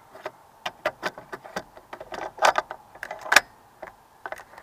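Irregular small clicks and light knocks of a 40 mm airsoft tag round being handled and loaded into the breech of an airsoft cannon, with two sharper clicks about two and a half and three and a half seconds in.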